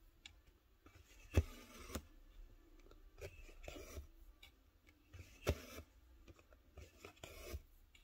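Cross-stitch needle punching through stiff stamped 11-count fabric with a sharp pop twice, each time followed by the rasp of floss being drawn through. Further softer rasps of thread pulling through the fabric come in between.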